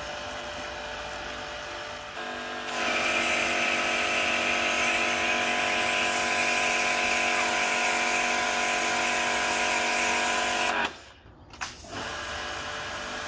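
Kärcher electric pressure washer running, its motor and pump giving a steady hum with a loud water-spray hiss from the lance from about three seconds in. It keeps running without building pressure, the fault being shown. The sound drops out briefly about eleven seconds in, then the machine runs on.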